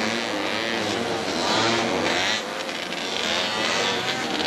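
Engines of small off-road racing buggies (Honda Odysseys and Pilots) revving hard on a dirt track, several pitches rising and falling as they accelerate and back off.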